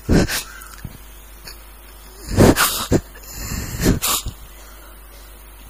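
A man sobbing close to a microphone: three bouts of crying with gasping, sniffing breaths, the loudest about two and a half seconds in.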